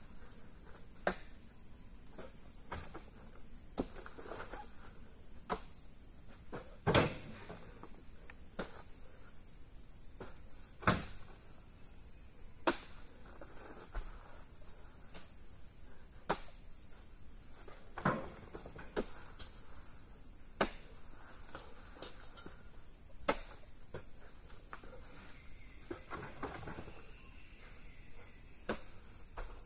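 Sharp knocks every second or two, a handful of them louder, over a steady high-pitched drone of insects.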